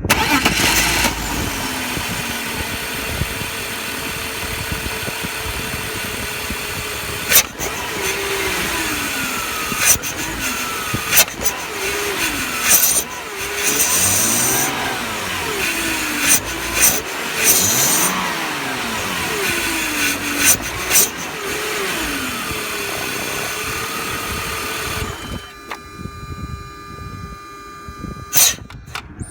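BMW E46 engine running with a strong air hiss from a large vacuum leak, which the owner says drops the idle to about 400 rpm. The revs rise and fall several times, with sharp clicks in between, then settle to a quieter steady idle near the end.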